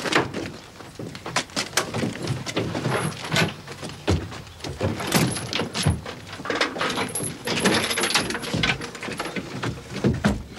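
Soldiers climbing aboard an army lorry: many boot thuds and knocks on the wooden bed and tailboard, with rifles and kit rattling.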